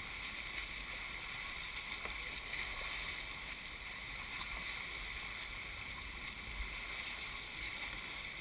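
Hobie 21SE catamaran hulls rushing through choppy water under sail: a steady hiss of water and spray, with a low rumble of wind buffeting the microphone.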